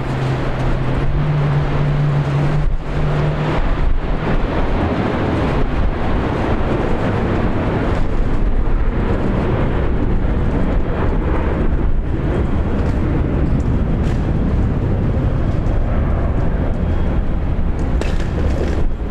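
Steady vehicle rumble and road noise. In the first few seconds a low engine hum steps up in pitch twice.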